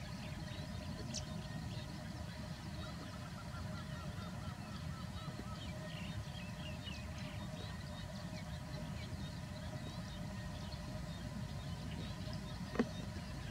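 Outdoor rural ambience: a steady low rumble with many faint bird chirps and calls, including a rapid run of repeated notes about three seconds in, and a single sharp click near the end.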